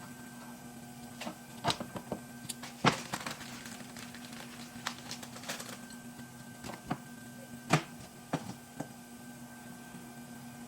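A car's steering or front suspension creaking when turned left or right: irregular short creaks and clicks, the loudest about three seconds in and near eight seconds, over a steady low hum.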